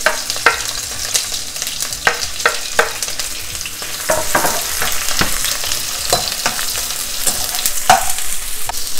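Sliced shallots, garlic, ginger, green chillies and spring onion sizzling in hot oil in a nonstick pan, tossed with metal tongs that click and scrape against the pan now and then.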